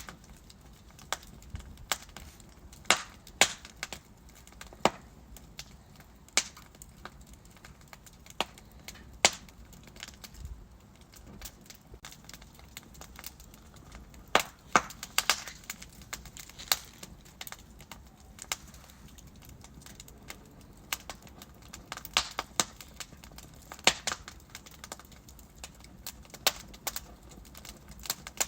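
Wood fire burning in a fireplace: irregular sharp crackles and pops from the burning logs over a faint steady hiss, with a few pops bunched together in quick runs.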